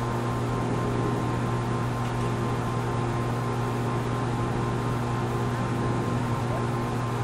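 Steady machine hum: a strong low drone with a few fixed higher tones over an even hiss, unchanging throughout, like a motor or fan running continuously.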